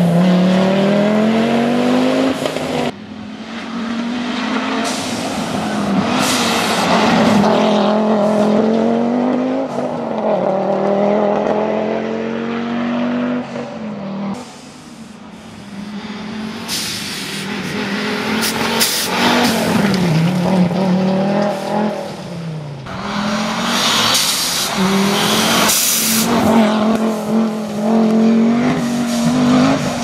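Audi quattro rally car's turbocharged five-cylinder engine at full throttle, its note climbing and then dropping with each gear change. Several passes are cut together, with a rushing hiss of tyres on gravel as the car comes close in the second half.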